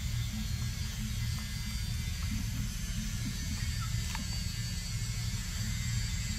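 A steady low hum, with a few faint clicks.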